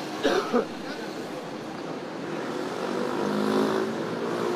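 Motorcade vehicles driving past, a steady rush of engine and tyre noise, with two short louder sounds near the start.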